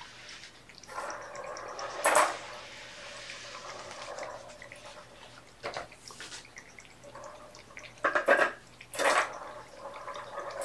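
Intermittent rustling and scratching from kittens clambering over a carpet-covered cat scratcher ring, in a handful of short bursts.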